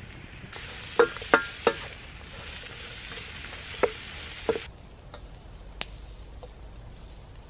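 Onions, garlic and ginger sizzling in a large Finnish wilderness frying pan over a campfire, stirred with a wooden spatula that knocks against the pan several times. The sizzling drops to a quieter background about two-thirds of the way through.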